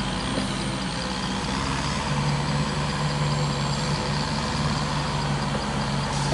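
Yanmar ViO55 mini excavator's diesel engine running steadily while its grapple arm lifts logs, with a steady low hum that grows stronger about two seconds in.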